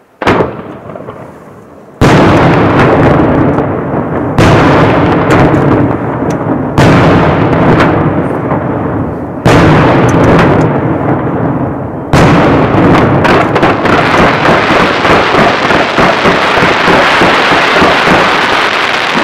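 Aerial fireworks display. A smaller bang comes about a quarter second in, then four heavy shell bursts about two and a half seconds apart, each with a long fading tail. From about twelve seconds in, a continuous barrage of bursts and crackle follows.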